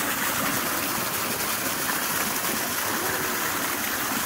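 Water falling in thin streams from above into a shallow pool, splashing steadily.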